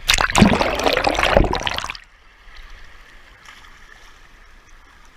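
A loud, noisy rush lasting about two seconds and ending abruptly, then the steady, quieter sound of a waterfall stream running.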